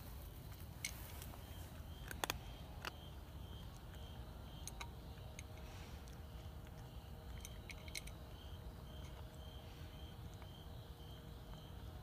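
Cricket chirping in a steady pulse about twice a second, with a few scattered sharp clicks as a cat eats from a bowl, over a low steady rumble.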